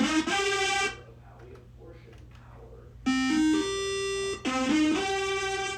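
Korg keytar synthesizer playing a detuned lead preset: a short phrase of a few notes stepping up to a held note. The phrase ends about a second in and, after a pause of about two seconds, is played again.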